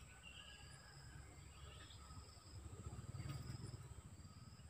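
Faint outdoor insect chorus: a steady high-pitched drone with short repeated chirps above a low rumble that grows louder about halfway through.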